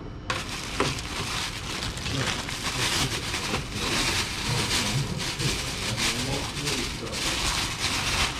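Thin plastic shopping bag rustling and crinkling steadily as it is handled and opened.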